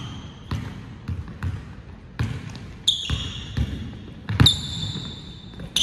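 Basketball being dribbled on an indoor court: about seven bounces at a steady pace, one roughly every three-quarters of a second. A high ringing tone hangs on after two of the bounces, about three and four and a half seconds in.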